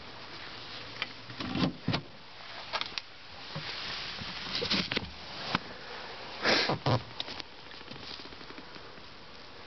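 Scattered handling knocks, clicks and rustles over a steady low hiss, the loudest cluster about six and a half seconds in, then quieter.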